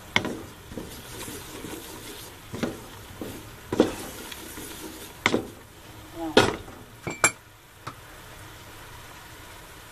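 A utensil stirring and scraping in a cooking pot of annatto-red sauce, clattering against the pot about six times, over a low steady hiss of the heating liquid. The stirring stops about eight seconds in and only the hiss remains.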